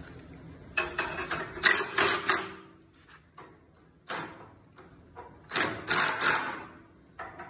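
Cordless power driver with a socket running in two bursts, about a second in and again near the six-second mark, tightening a lock bolt on a steel track setter.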